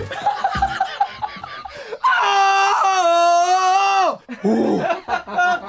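Laughter and voices, then about two seconds in a man belts one long loud note into a vocal microphone, held steady for about two seconds before his pitch drops away.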